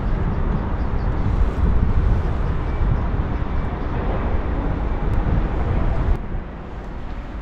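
Wind buffeting the microphone outdoors, a heavy low rumble that drops off suddenly about six seconds in.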